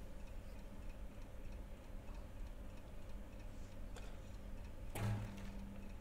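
Faint, regular light ticking, then about five seconds in a single deep stroke on a large frame drum, its low tone ringing on steadily after the hit.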